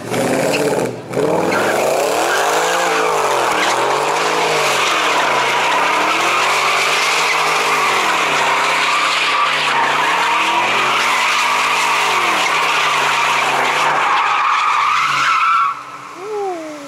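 A car drifting: tyres screeching continuously while the engine revs rise and fall again and again, about every two seconds. The screech stops abruptly near the end.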